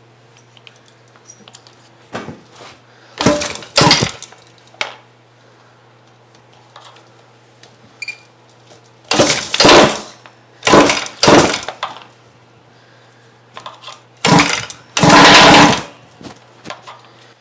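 Repeated pull-starting of the 50cc GT Taylor two-stroke engine in a Kraken Vekta 5 RC car: several short bursts of the recoil starter spinning the engine over, mostly in quick pairs, without it catching. The engine has not been run for a while.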